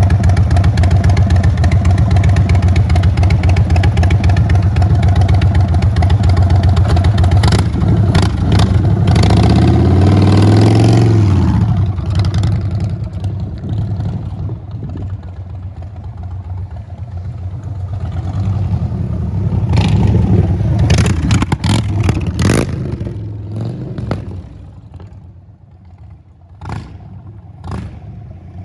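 Indian Chief V-twin running through a Freedom Performance chrome one-piece aftermarket exhaust. It idles steadily at first, revs up and back down about ten seconds in, and then runs quieter and more unevenly, with a few sharp knocks near the end.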